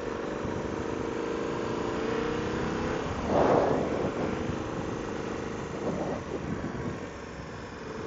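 KTM adventure motorcycle engine running steadily under way, heard through the rider's mics with wind noise. A brief whoosh about three and a half seconds in is the loudest moment.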